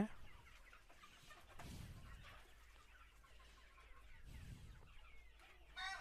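Faint clucking of a flock of Sonali chickens, with a louder, drawn-out chicken call near the end.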